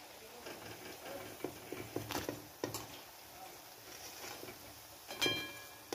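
Steel spoon scraping and clicking against an aluminium kadai while potato rings fry in oil with a faint sizzle. About five seconds in, the spoon strikes the pan once and the metal rings briefly.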